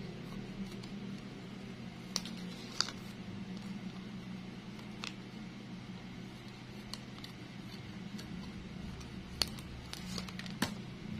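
Scissors cutting through a paper leaf pattern and a green plastic-bag sheet: a handful of sharp, separate snips over a steady low hum.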